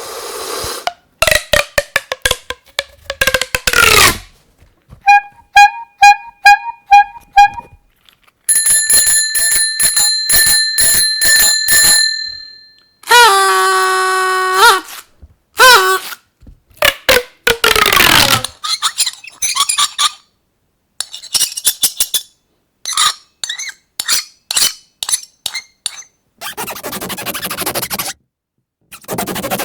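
A rapid run of unlike sound effects one after another: sliding tones, a row of short beeps, evenly repeated high ringing pulses like an alarm, a held pitched tone, a falling glide, quick clicks and chirps, and a noisy hiss near the end.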